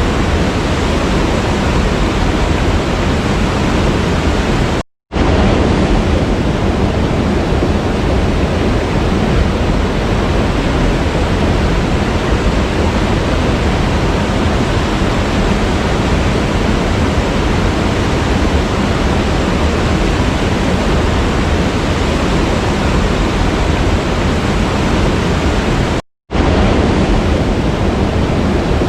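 Waterfall water rushing in a loud, steady, even roar. The sound drops out completely for a split second twice, about five seconds in and again near the end, and resumes at once.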